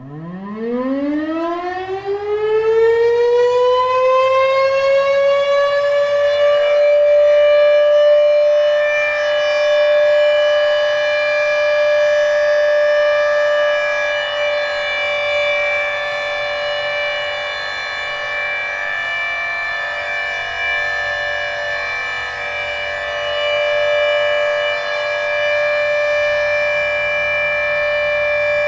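Federal Signal Thunderbeam RSH-10B outdoor warning siren, one with a faulty reflector, winding up from a low pitch over about six seconds and then holding a steady, loud alert tone.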